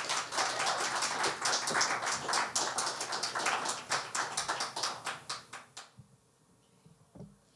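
Audience clapping in welcome, which dies away about six seconds in.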